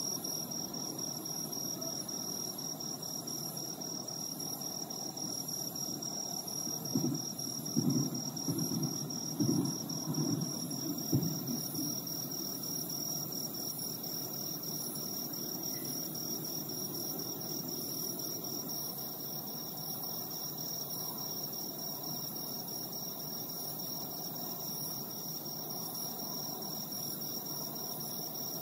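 Crickets trilling steadily over a low steady rumble. About a quarter of the way in, a quick run of half a dozen low, dull booms over some four seconds: distant fireworks, heard but not seen.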